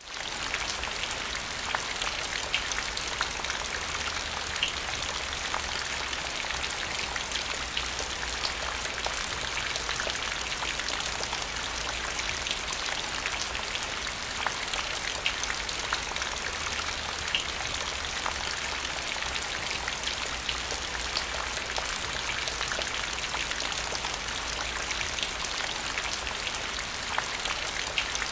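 Steady rain falling on a hard surface: a constant hiss with the sharp ticks of single drops scattered through it, and a faint low rumble underneath.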